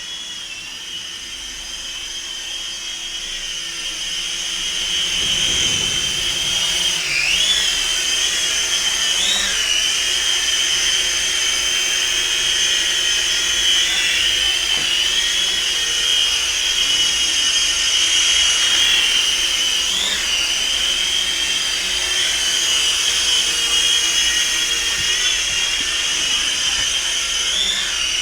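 Syma S52H toy RC helicopter in flight, its brushed electric motors and rotors whining steadily at a high pitch. The whine grows louder over the first few seconds, and about four times its pitch dips and recovers briefly as the throttle changes.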